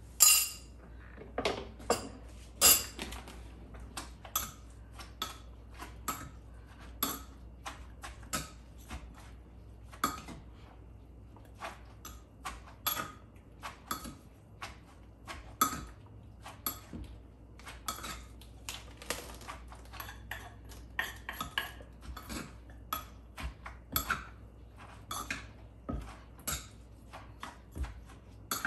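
Wooden pestle pounding papaya salad in a clay mortar, with a spoon clinking against the mortar as the salad is turned; irregular knocks and clinks, about two each second.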